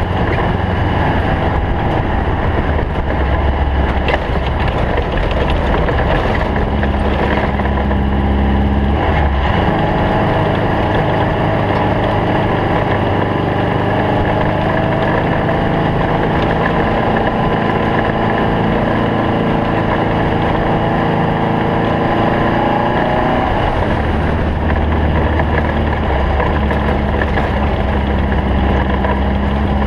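Air-cooled Volkswagen Beetle flat-four engine of a stock-class desert race bug, running steadily and loudly. Its deep low rumble drops away for about fifteen seconds in the middle and comes back near the end.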